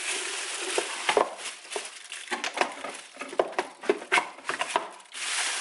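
A thin plastic grocery bag rustling and crinkling as it is stuffed into a Bella juicer's plastic pulp catcher, with many small sharp clicks and knocks as the container is handled and set back in place.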